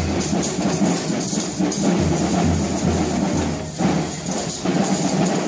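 Parade music with drums and rattling percussion playing continuously, easing off briefly about four seconds in.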